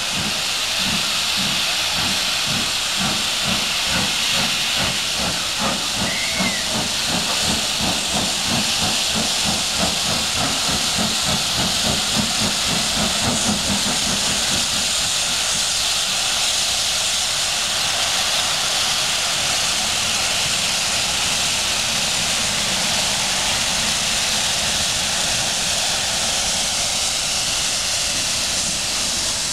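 Steam locomotive exhaust from a departing train worked by LMS Jubilee 5690 Leander and Black Five 45407: quick, even chuffs for about the first half, then giving way to a steady hiss of steam and rolling stock as the engine and coaches pass close by.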